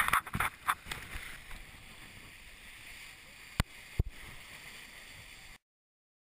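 Water rushing and splashing against the hull of a Melges 24 sailboat driving through chop, with a few loud splashes in the first second and a steady rush after. Two sharp knocks come close together near the middle, and the sound cuts off suddenly about five and a half seconds in.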